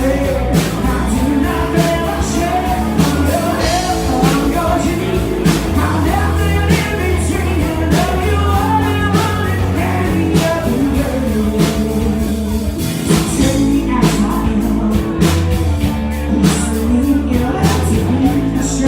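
Live rock band playing a song loud, with a steady drum beat, bass and singing.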